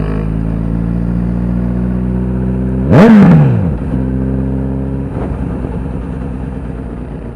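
Motorcycle engine running at a steady speed on the move, with one sharp, loud rev about three seconds in that rises and falls in pitch within a second. After that it settles back to the steady note and grows fainter near the end.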